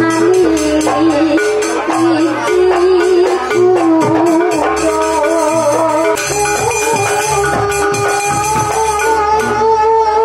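Jaranan gamelan ensemble music: a wavering, sustained melodic line over rattling percussion and deep low notes that sound in steady blocks.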